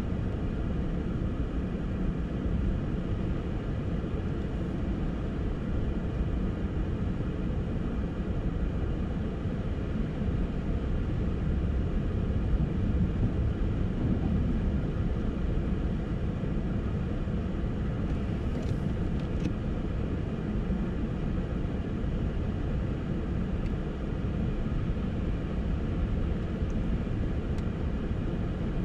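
Steady low rumble of a car's engine and tyres heard from inside the cabin while driving slowly on a snowy road.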